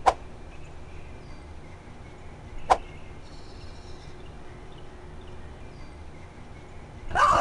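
Two sharp cracks, one at the very start and one about two and a half seconds later, over a steady outdoor background with a few faint chirps. A louder, rougher burst of noise starts just before the end.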